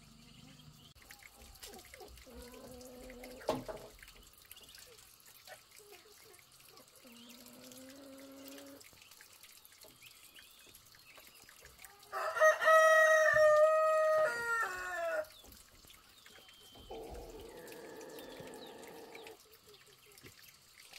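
A rooster crowing: one loud, long, held crow about halfway through, with two fainter pitched calls before it. A single knock comes early and a rough noise lasts a couple of seconds near the end.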